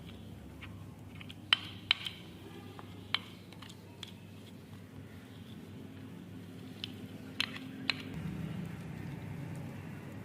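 A few sharp clinks of cooking utensils, two close together near the start and another pair near the end, over a low steady hum.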